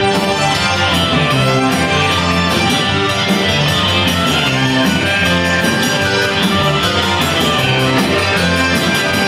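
Tex-Mex rock band playing live: electric guitars, bass and drums with accordion, keyboard and trumpet, over a steady beat.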